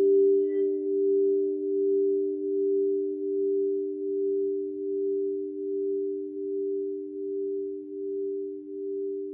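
Crystal singing bowls sounding together as two steady, sustained tones. The sound swells and fades in a slow wavering pulse a little faster than once a second.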